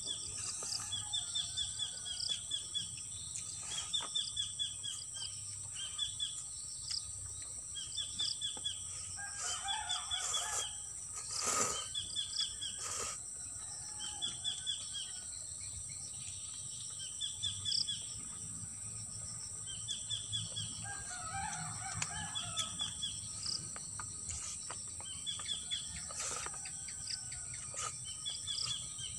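A bird repeating a short, high trilled phrase every second or two, over a steady high drone of insects.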